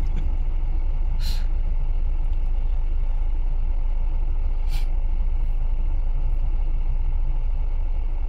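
Steady low rumble of an off-road vehicle's engine running, with two short hisses, one about a second in and one about five seconds in.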